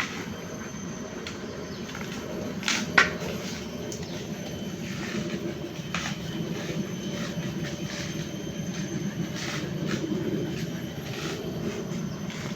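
A coconut being husked by hand: scattered sharp knocks and cracks of the tool and tearing husk, the loudest about three seconds in, over a steady low rumble.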